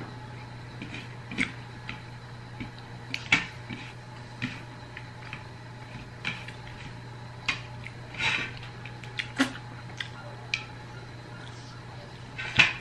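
Eating sounds of a person eating a bony fish with her fingers: scattered, irregular soft clicks and smacks of chewing and lips, with a few sharper clicks about three seconds in and near the end, over a steady low hum.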